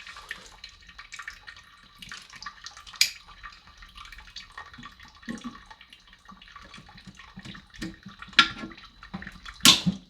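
Plastic being cut and worked inside a toilet tank: scattered small clicks and scrapes, with sharp snaps about three seconds in and twice near the end, the last the loudest, as a broken piece of the tube comes away.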